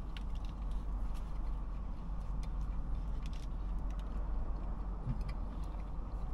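Steady low rumble inside a car cabin, with faint scattered clicks of someone chewing a burger.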